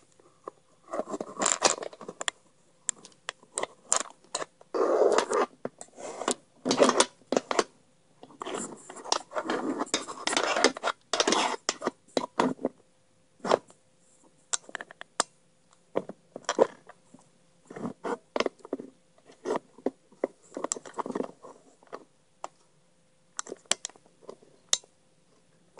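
Close handling noise from a camera and its stand being pushed and adjusted: irregular clicks, knocks and scraping rustles, with a faint steady hum underneath.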